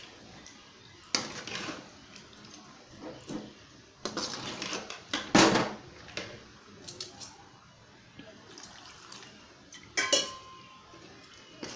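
A spoon stirring and scraping in a kadai of watery chicken curry gravy, with scattered metal clinks and scrapes. The loudest clink is about five and a half seconds in, and another rings briefly about ten seconds in.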